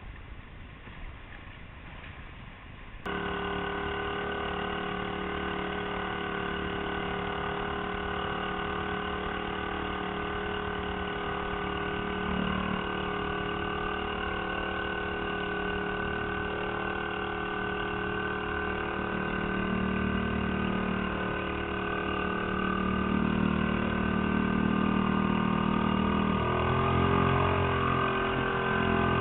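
Small outboard motor running steadily, driving the boat under way. It cuts in abruptly about three seconds in after a quieter stretch, and its pitch shifts near the end.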